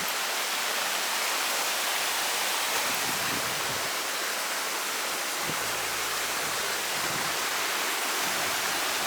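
Steady rush of a creek's waterfall, an even hiss of falling water that neither grows nor fades.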